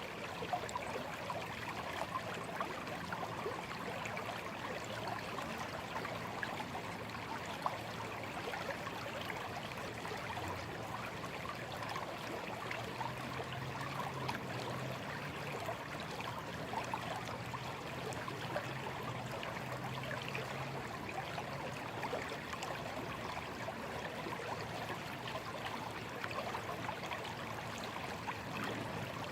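A small, slow stream trickling and gurgling in a steady, even flow of water noise.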